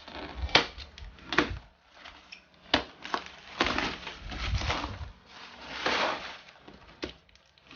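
A parcel's cardboard packaging being opened and handled: several sharp knocks and taps, with rustling and scraping in between.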